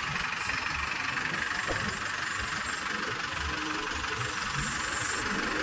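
Mahindra Arjun Novo tractor's diesel engine idling steadily.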